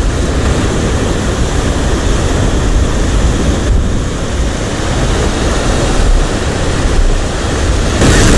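Wind buffeting the microphone with a steady low rumble over the wash of surf on the shore, getting louder near the end.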